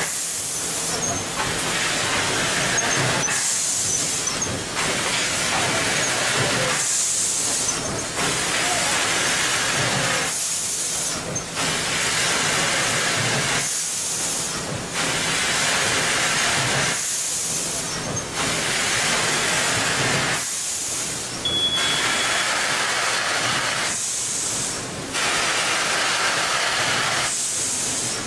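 Automatic bag-packing line running: a steady mechanical din, with a short hiss of compressed air from its pneumatic actuators about every three and a half seconds as the machine cycles through each bag.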